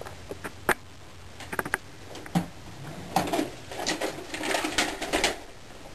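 Rummaging under a bed: scattered light knocks and clicks of objects being moved, then a couple of seconds of rustling about halfway through.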